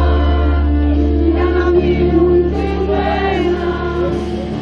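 Live band playing a Greek song, heard from within the crowd, with many voices singing the melody together over a steady held bass note.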